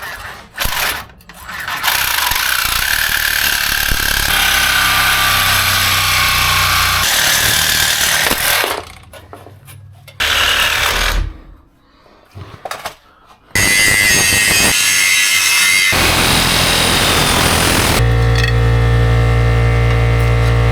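Cutting torch hissing steadily as it cuts rivets off a truck's factory frame bracket, in several long runs with short pauses between. Music comes in near the end.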